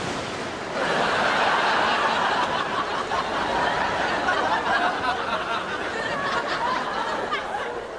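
Studio audience laughter, swelling up about a second in and easing off near the end.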